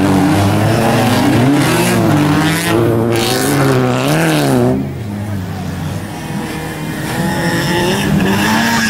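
Peugeot 306 autocross car's engine revving hard, its pitch rising and falling about once a second as the throttle is worked on the loose dirt. About five seconds in it drops away to a fainter, steadier engine sound as the car pulls off into the distance.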